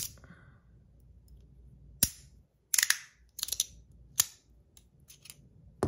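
Metal plates of a magnetic fidget slider being pulled apart and handled: one sharp click about two seconds in, then quick clusters of metallic clicks and clacks, with lighter ticks near the end.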